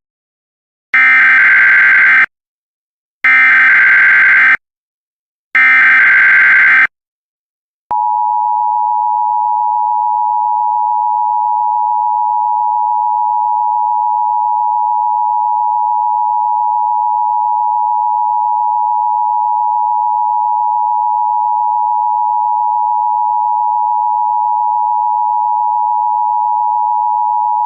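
Emergency Alert System test signal. First come three short bursts of SAME header data, each about a second long. Then the EAS two-tone attention signal, a steady dual tone just under 1 kHz, is held for about twenty seconds.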